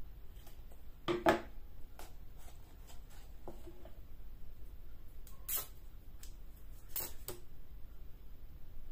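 Scissors and a roll of floral tape being handled on a table: a few clicks and knocks, with two short rasps of the sticky tape being pulled off its roll, about five and a half and seven seconds in.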